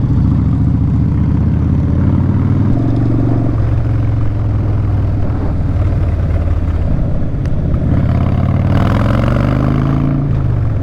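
Harley-Davidson Dyna Street Bob's Twin Cam V-twin running through Vance & Hines Short Shot exhaust pipes while riding, its note shifting a little in pitch as the throttle changes.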